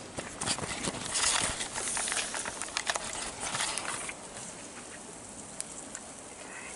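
Irregular rustling and crackling close to the microphone for about the first four seconds, then a faint steady hiss.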